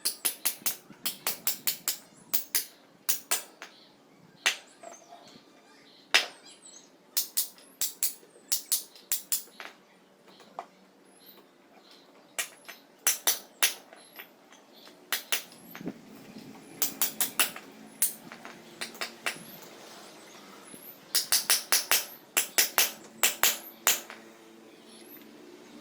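Ratchet clicking in quick bursts of several clicks each, over and over, as bolts are worked loose during an engine removal. A faint low hum comes in about halfway through.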